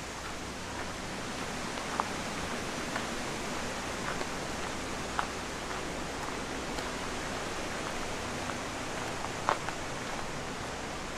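Steady rush of flowing water, with a few faint short clicks over it.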